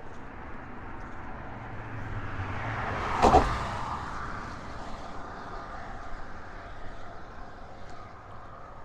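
A motor vehicle passing on the bridge roadway: its tyre and engine noise swells, peaks sharply a little over three seconds in, then fades away, over steady traffic noise.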